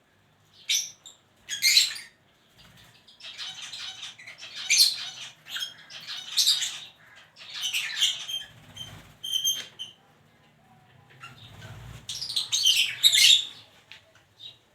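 Lovebirds chattering and squawking in bursts of harsh, high-pitched calls, with a run of short clear chirps in the middle and brief lulls between bursts.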